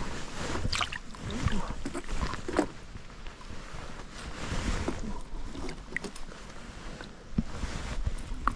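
Irregular water splashes with small knocks and clicks around a small boat on a river.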